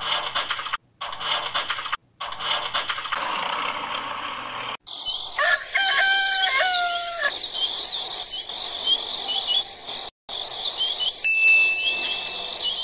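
A rooster crows once, over many small birds chirping rapidly, a farmyard-morning sound effect. Before it there are a few seconds of music. Near the end a single steady high tone sounds.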